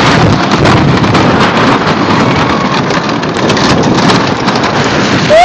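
Twister II wooden roller coaster train running fast down the track: a loud, continuous rumble and clatter of the wheels on the wooden track, mixed with wind on the microphone. Riders' screaming rises up right at the very end.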